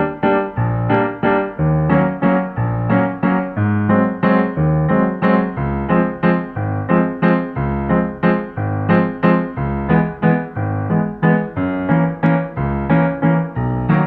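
Background piano music: an even, repeating pattern of notes, about three a second, over low bass notes.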